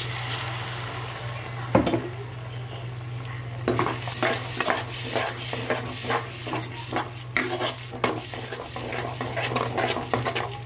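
Spice masala sizzling in a pan as a thick cashew and yogurt paste goes in, with one sharp knock about two seconds in. Then a metal spoon stirs the paste into the masala, scraping and clicking quickly and repeatedly against the pan.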